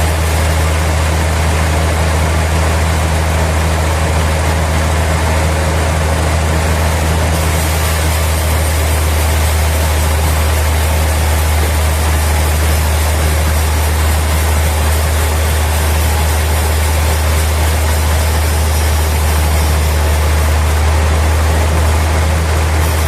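Sawmill machinery running steadily: a constant low engine hum with an even rushing noise over it, unchanging throughout.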